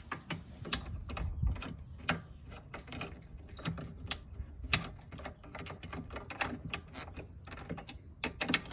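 Hand ratchet wrench clicking in irregular runs of quick, sharp ticks as a fastener is turned.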